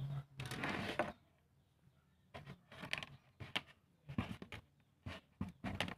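Close handling noises from hookup wire and a small relay being worked by hand: a rustle lasting about a second, then a string of short scrapes and rubs as the wires are bent onto the relay's terminals.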